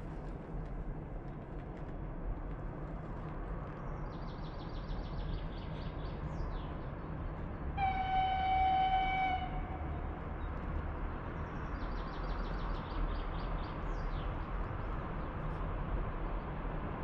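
A VL10U electric locomotive sounds a single high horn blast about eight seconds in, lasting about a second and a half and sagging slightly in pitch at the end, as it approaches. Birds chirp before and after the blast over a steady background rush.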